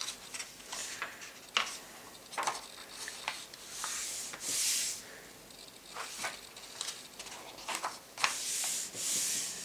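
Paper pages of an A4 model-kit instruction booklet being turned and smoothed flat by hand: papery rustles and soft clicks, with two longer swishes of a page sliding over, about four and nine seconds in.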